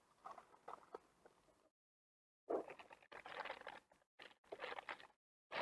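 Clear plastic zip bag of wiring harnesses crinkling and rustling as it is handled, in irregular faint bursts that are thickest in the second half. A few light clicks early on, as a small circuit-board adapter is set into the plastic tool case.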